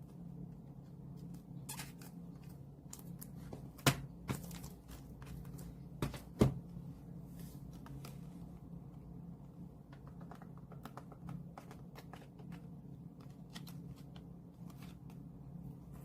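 Album packaging and cards being handled by hand: scattered small clicks and rustles, with a few sharper taps about four and six seconds in, over a steady low hum.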